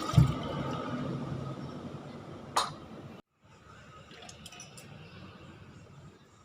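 Ingredients being washed in a bowl at the kitchen sink, with water noise. There is a low knock at the start and a sharp clink of dishware about two and a half seconds in. The sound drops out briefly about three seconds in and goes on more quietly.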